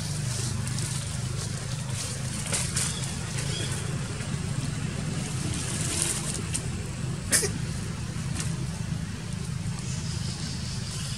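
A steady low drone like a running motor, with scattered light clicks and rustles and one sharper click about seven seconds in.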